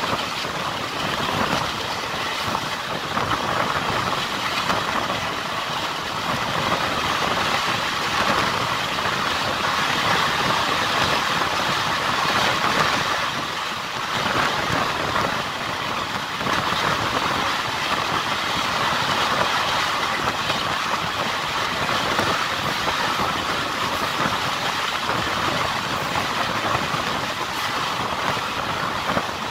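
Passenger train coach running along the track at speed, heard from its open window: a steady noise of wheels on rails and rushing air.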